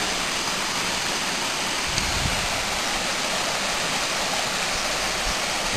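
Steady rushing of a stream running over rocks and boulders, with a couple of faint low thumps.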